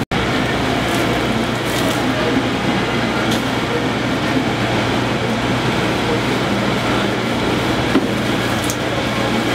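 A steady low mechanical hum and rumble under a constant noisy background, unchanging throughout.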